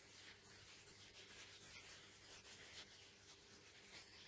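Near silence with faint, irregular rubbing and rustling of a wax strip being handled and smoothed onto a leg, over a faint low hum.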